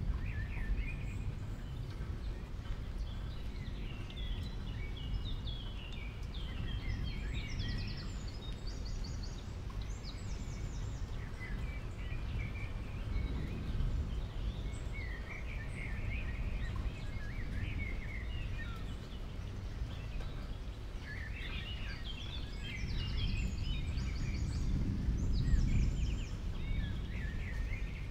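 Small birds chirping in scattered bursts of short high twitters over a steady low rumble of background noise.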